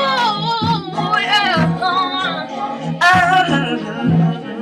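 Music: a voice singing with wide sliding runs over a steady instrumental accompaniment.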